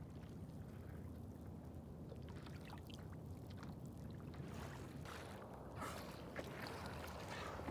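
Water lapping and lightly splashing against the side of a small boat, over a low steady rumble, with a few sharper splashes about six seconds in.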